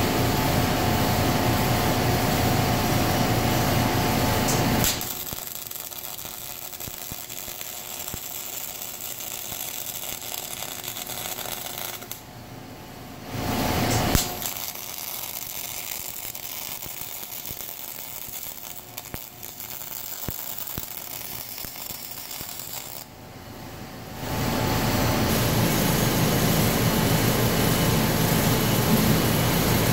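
Robotic arc welder welding rebar to a steel bearing plate: a quieter, even arc crackle in two runs, from about five to twelve seconds and from about fourteen to twenty-four seconds, each starting with a sharp click. Before and after the welds, a loud steady machine noise with a humming tone fills the shop.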